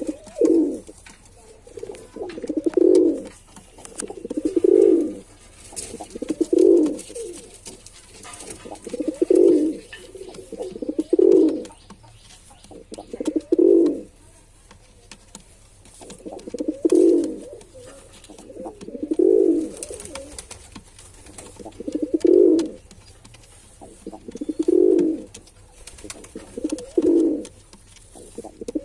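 Male pigeon cooing: short, low coos repeated about every two seconds.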